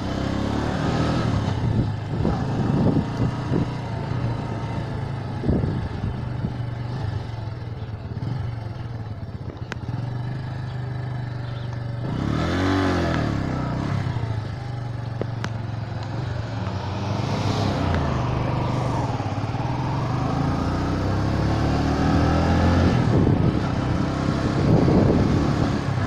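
Bajaj Boxer BM 125 X's single-cylinder four-stroke engine running under way, its note rising and falling with the throttle.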